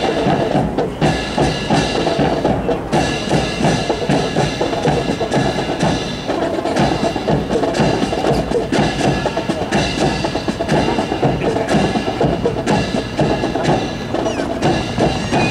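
A rifle drill team's rifles and boots clacking and stamping in quick rhythm, with music playing under it.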